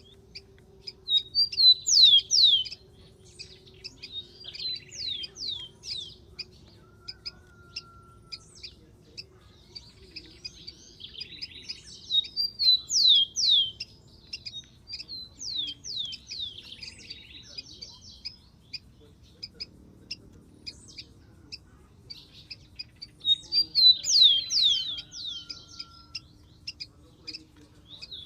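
Rufous-collared sparrow singing: a loud phrase of quick, high, downward-sliding whistles with a buzzy trill, given three times about eleven seconds apart, with softer chirps in between.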